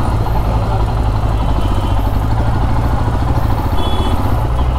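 Motorcycle engine running steadily with a low, even rumble.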